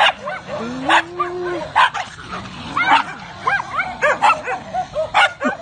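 Dogs, among them miniature pinschers, barking sharply about once a second, with quick high yips and whimpers between the barks and a longer low whine about a second in.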